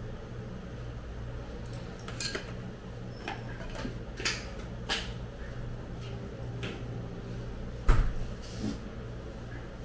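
Light clicks and taps of kitchen handling over a steady low hum, with one louder knock about eight seconds in, as chopped green onion is scattered onto a plate of fried noodles.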